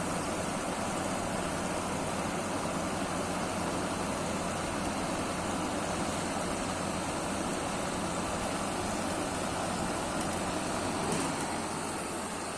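Window air conditioner running just after its R410a charge: a steady rush of fan air with a low compressor hum underneath. The sound drops slightly near the end.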